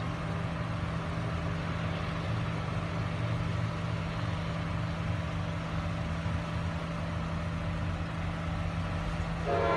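Steady low rumble of a CSX coal train's diesel locomotives running near the crossing. The train horn comes in just before the end.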